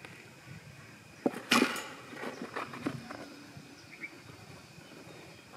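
A wire fan guard drops down a PVC pipe and lands on the trap's base with a sharp clatter about a second and a half in, followed by a few lighter rattles during the next second or so.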